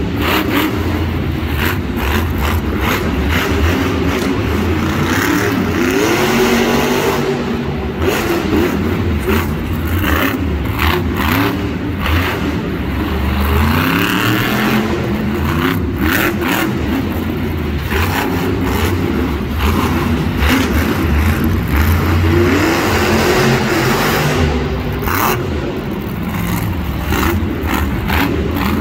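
Monster truck's supercharged big-block V8 revving up and down over and over, with scattered sharp bangs.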